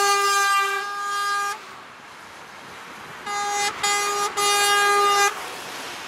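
Truck air horn sounding from passing lorries: one long blast that stops about a second and a half in, then three blasts in quick succession, the last the longest. Steady motorway traffic noise runs beneath.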